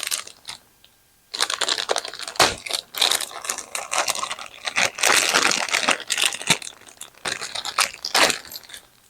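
Plastic packaging crinkling and rustling as it is handled, with many small clicks, starting about a second in.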